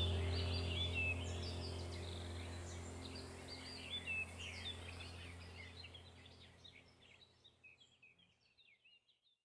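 Birds chirping in quick, varied calls over a steady low hum, the whole fading out gradually until it is gone near the end.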